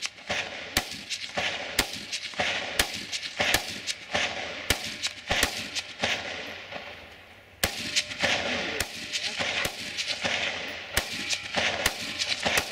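Rifle shots fired in a quick string, about two a second, with a break of over a second about six seconds in before the firing picks up again.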